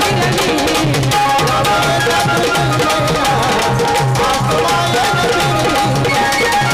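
Music: Indian folk-song accompaniment, a hand drum keeping a quick, even beat under a melody instrument.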